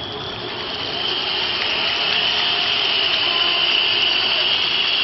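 A large rally crowd cheering and blowing many whistles at once, a steady shrill din that swells about a second in and holds.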